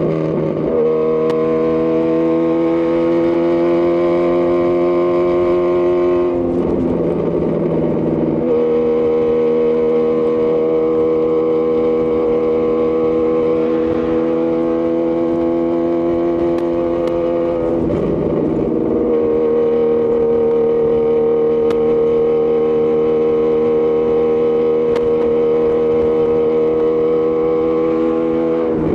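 2018 Honda CB1000R inline-four engine running through a Lextek CP1 full exhaust system, cruising at a steady engine speed with a steady, even note. The note breaks briefly and settles again about six seconds in, about eighteen seconds in, and at the very end, as the throttle or gear changes.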